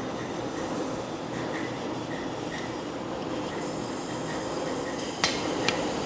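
Chain hoist lowering a heavy cast-iron block on its chain: a steady mechanical running noise with a faint regular ticking, and two sharp metal chain clinks near the end.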